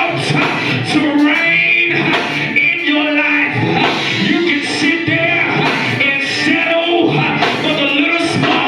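Loud live church music with singing and drums.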